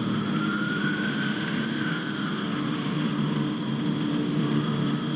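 A distant police siren wailing, its pitch rising and then falling once in the first two seconds, over a steady low hum of background noise.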